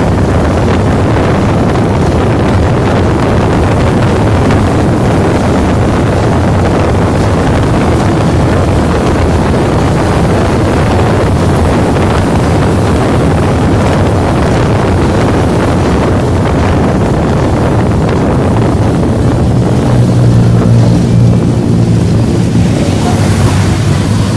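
Heavy wind buffeting the phone's microphone as the bicycle rides along at speed, a steady low rushing roar. About twenty seconds in, a low hum joins it for a couple of seconds.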